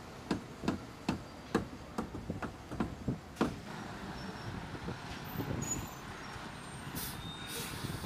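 A run of sharp knocks, about two or three a second, from work on a steel rebar mat. After about three and a half seconds they give way to the steady running of a concrete mixer truck passing, with a short hiss of air near the end.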